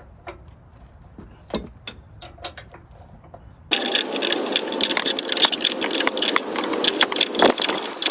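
A few faint metallic clicks of tool work on the upper control arm bolts. A little under halfway through, a loud rapid mechanical rattle starts abruptly and carries on: a tool running the bolts out.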